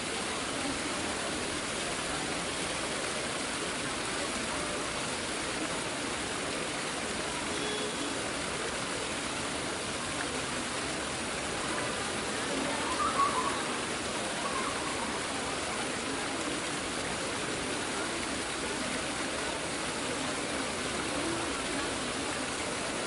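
Steady, indistinct murmur of a large crowd talking, with one brief louder sound about 13 seconds in.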